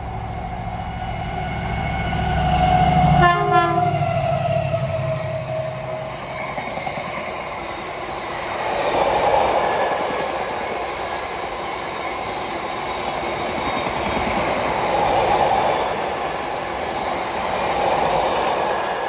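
A diesel freight locomotive hauling an oil tank train passes under power, its engine note falling in pitch as it goes by. It gives a short horn blast about three seconds in. The tank wagons then roll past in a steady rumble of wheels on rail that swells and fades with each passing bogie.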